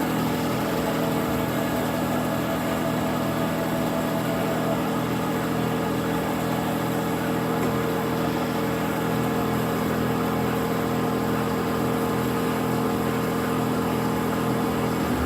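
Berg & Schmid GBS 305 VAI CNC automatic metal band saw running steadily, an even machine hum of fixed pitch over a noisy hiss; a higher tone in the hum drops out about five seconds in.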